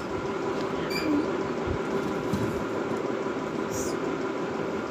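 Steady rushing hum of kitchen background noise, with a few faint ticks.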